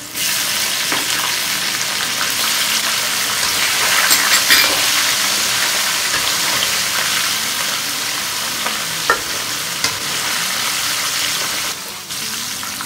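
Battered pork strips, shredded onion and bell peppers deep-frying in hot oil in a wok: a loud, steady sizzle that jumps up suddenly as the vegetables go into the oil. A few sharp clicks of a metal slotted ladle against the wok are heard through it, and the sizzle drops just before the end as the food is lifted out.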